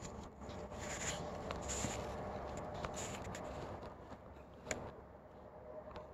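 Handling noise from a handheld camera: hands rubbing and scraping on the body, with a few light clicks, the sharpest about four and a half seconds in.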